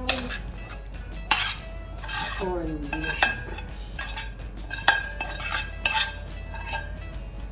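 A metal spoon scraping and knocking against a stainless steel frying pan while scooping fried corned beef out of it, with several sharp ringing clinks.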